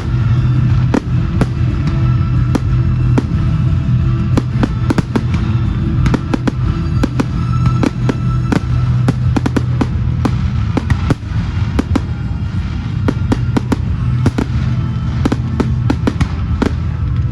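Fireworks display: a rapid run of bangs and crackles from bursting shells, thickest in two spells, over music playing steadily underneath.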